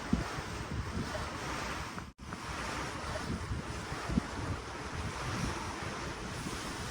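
Ocean water washing below a cruise ship, with wind buffeting the microphone in low gusts. The sound cuts out for a split second about two seconds in.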